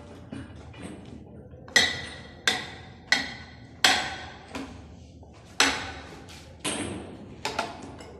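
Sharp metal-on-metal clanks, each ringing briefly, about one a second with a few fainter knocks between, as a steel pipe is worked by hand in a Rothenberger 2SE pipe threading machine with its motor off.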